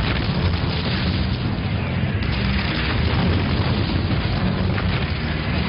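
Battlefield explosions: a dense, steady rumbling din of blasts with no single sharp bang standing out.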